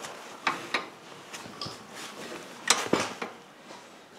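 Cam-driven pushrods and return springs of a homemade spool-valve gear clicking and clinking as the shaft turns: a pair of sharp metallic clicks about half a second in and a cluster of three nearly three seconds in.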